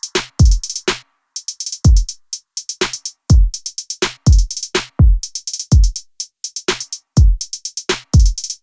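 Background music: an electronic drum-machine beat of deep kick drums and rapid hi-hat ticks.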